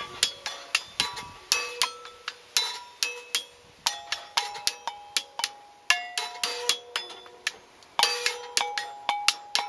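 Hanging car brake rotors and brake drums struck with sticks, giving quick runs of clanging metallic strikes at several different pitches, each ringing on briefly.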